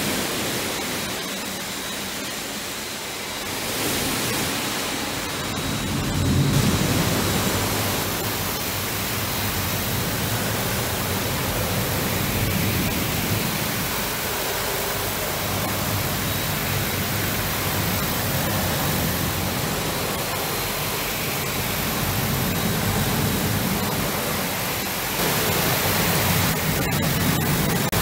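Westmatic 3 Brush Rollover truck wash at work: spinning brushes and water spray scrubbing the side of a box truck, a steady rushing hiss that grows louder about six seconds in and again near the end.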